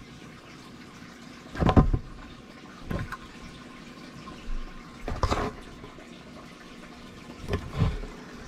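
Giant African bullfrog lunging and snapping at dubia roaches on the enclosure floor: about four dull thumps and smacks, the loudest about two seconds and five seconds in, over a steady hiss.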